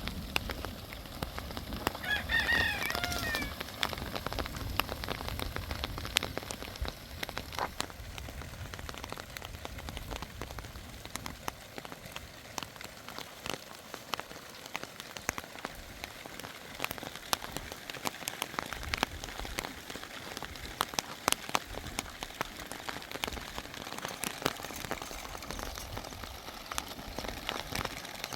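A rooster crows once, about two seconds in, over a steady crackling, pattering noise full of sharp ticks.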